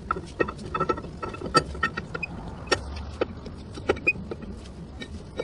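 Steel axle shaft flange being slid onto the wheel hub studs of a Freightliner Cascadia drive axle, metal clicking and knocking irregularly as it seats against the new hub gasket.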